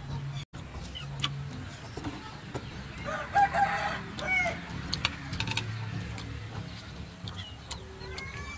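A rooster crows once, about three seconds in, over small clicks and taps of chopsticks and eating.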